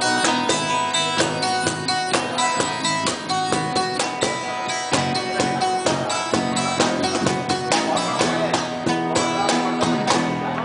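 A live band playing an instrumental passage, led by strummed guitar in a steady rhythm.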